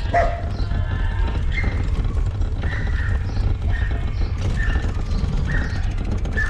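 Handcycle rolling over a paved street, a steady low rumble from the bike-mounted camera. A short high-pitched chirp or squeak recurs about once a second.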